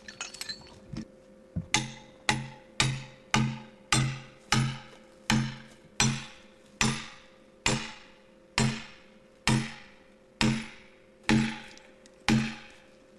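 Repeated heavy hammer blows driving an iron chain spike into the end of a felled log to hitch it for horse skidding: about fifteen strikes, roughly one every two-thirds of a second, each ringing briefly.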